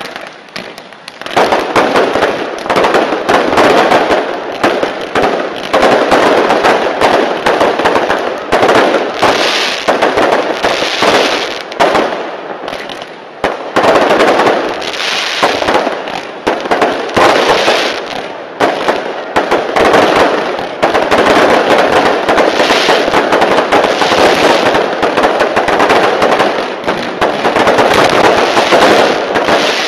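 Fireworks barrage: a dense, rapid crackle of launches and bursts, loud and nearly continuous, starting up sharply about a second and a half in.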